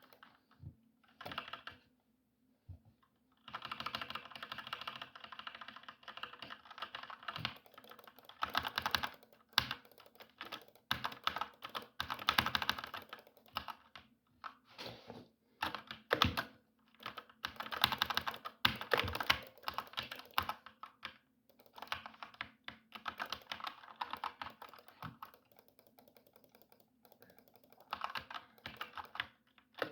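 Typing on a computer keyboard: fast runs of key clicks broken by short pauses, starting in earnest a few seconds in after a brief flurry. A faint steady low hum sits underneath.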